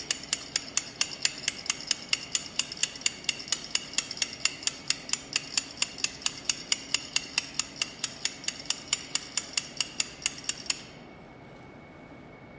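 A stirring rod clinks rapidly and evenly, about five times a second, against the inside of a metal coffee-cup calorimeter cup as the solution is stirred, with a short ringing after each clink. The clinking stops suddenly about eleven seconds in.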